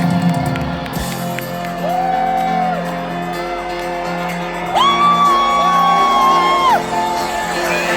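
Music over a festival PA with crowd noise, and a high voice whooping in long held notes: briefly before two seconds in, and louder for about two seconds from five seconds in.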